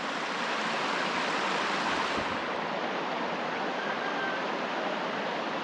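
A rain-swollen creek rushing steadily, a continuous even rush of running water.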